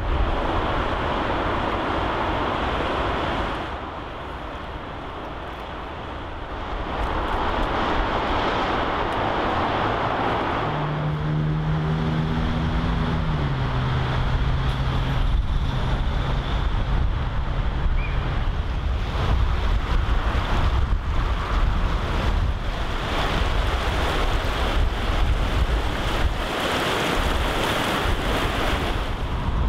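Rushing floodwater with heavy wind buffeting the microphone. About a third of the way in, a vehicle engine hums for a few seconds, its pitch stepping down once.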